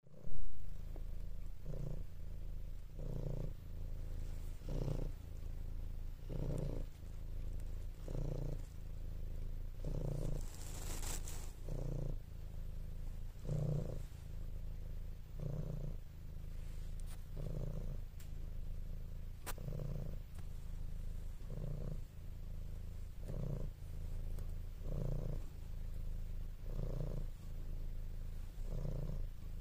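Domestic cat purring close to the microphone: a steady low rumble that swells with each breath, about once every second and a half to two seconds. There is a short bump right at the start.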